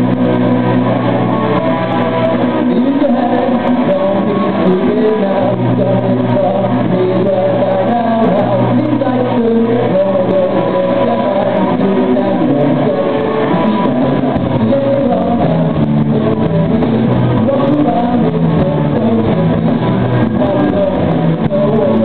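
Live rock band playing: electric guitars over drums, loud and continuous.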